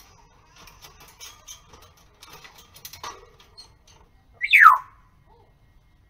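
African grey parrot gives one short whistle that slides steeply downward, about four and a half seconds in. Before it come faint clicks and taps as the parrot clambers on its wire cage.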